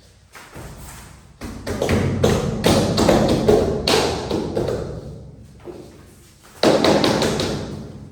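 A series of knocks and thumps, each ringing on briefly after the strike. There is a lull in the second half, then one more loud knock near the end.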